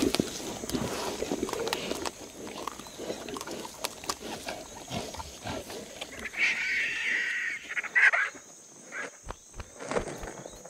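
Cheetahs feeding on a carcass: a jumble of snarls, grunts and the wet tearing of meat, with a louder high-pitched call lasting about a second roughly six seconds in.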